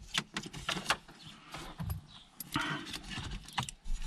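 Scattered clicks and rustles of a car's dashboard wiring loom being handled, as the tape wrapping is pulled off the loom to free the wires.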